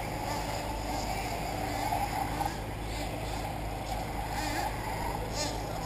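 Steady drone of radio-controlled off-road race cars' motors running around a dirt track.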